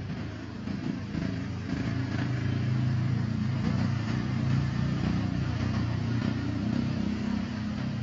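A motor vehicle's engine running close by, growing louder over the first few seconds and easing off near the end, as a vehicle passing.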